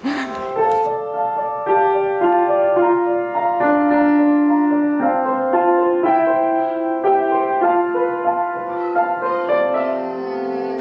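Upright piano playing a slow, simple melody over held chords, one note after another at an even pace. The piece is being sight-read for the first time from sheet music.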